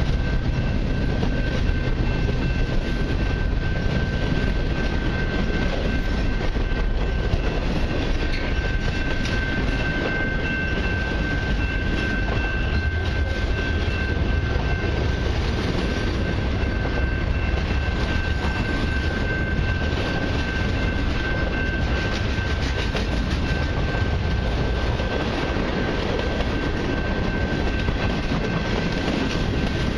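Freight cars of a long mixed freight train rolling past: a steady rumble of steel wheels on the rails with scattered clicks, and a steady high-pitched tone running through it.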